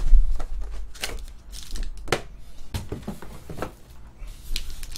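Foil-wrapped trading card packs and their cardboard box handled and set down on a table: a run of sharp taps and knocks, the loudest at the very start, with brief rustles of the wrappers between them.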